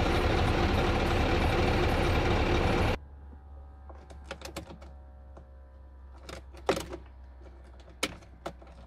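Scania R truck's diesel engine running steadily, cutting off abruptly about three seconds in. Then a faint low hum in the cab with a series of sharp clicks and knocks from the ignition key and dashboard controls being handled.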